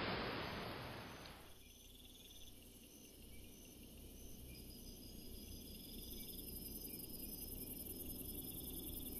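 Rain hiss fading out over the first second and a half, giving way to faint crickets chirping, short high chirps repeating steadily.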